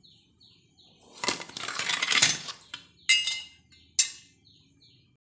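Stainless steel plate of cooked ragi thatte idli being set into a vessel of water: a scraping metal-on-metal rattle, then two ringing clinks about a second apart.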